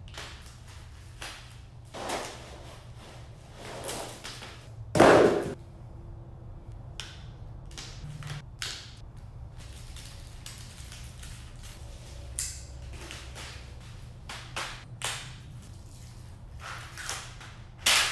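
A cardboard box being opened and its contents (plastic LED light fixtures, power cords and clips) unpacked and set down on a concrete floor: a string of short rustles, taps and clatters, the loudest about five seconds in. A low steady hum sits underneath.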